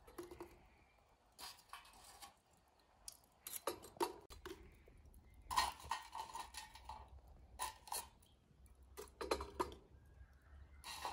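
Kitchen utensils and dishes clinking and clattering as they are handled, in irregular bursts with short quiet gaps between.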